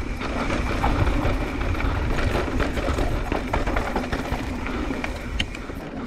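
Wind rumbling over a chin-mounted helmet camera as a Specialized Turbo Levo SL e-mountain bike rolls fast down a dry dirt trail, with many small ticks and rattles from the tyres and bike over the rough ground.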